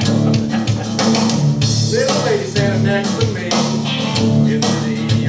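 Country-rock band music with electric guitar, bass and a steady drum beat, with some singing.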